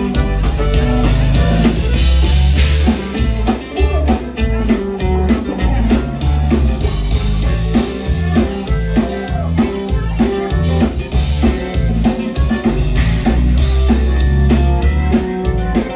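Live Tejano conjunto band playing a dance number: button accordion, guitar, electric bass and a drum kit keeping a steady beat.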